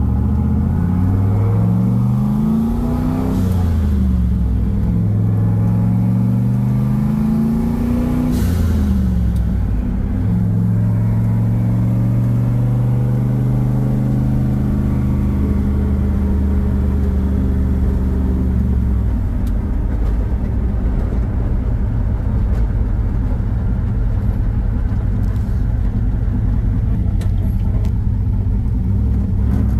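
Turbocharged LS V8 of a 1969 Camaro, heard from inside the cabin, pulling up through the gears of its six-speed manual: the engine note rises and drops back with an upshift about three seconds in, rises again and drops with a second upshift about eight seconds in, then holds a steady cruise.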